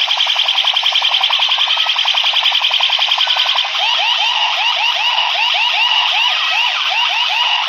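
Siren-style electronic sound effect played loud through a DJ street sound system: a fast pulsing alarm tone of about ten beats a second switches, a few seconds in, to rising whoops repeating about three times a second.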